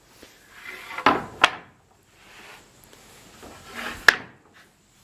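Wooden boards being handled and set down: brief scrapes, each ending in a sharp knock, with two knocks close together about a second in and another about four seconds in.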